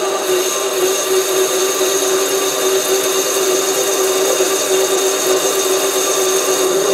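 SC2 mini lathe running, with a parting-off tool being fed steadily into a spinning aluminium rod: a steady whine from the lathe's motor and drive over the even hiss of the cut.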